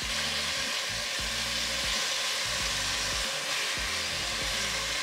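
Beef short ribs searing in hot olive oil in a Dutch oven, a steady sizzle as they brown and are turned with tongs. Background music with low repeating notes plays underneath.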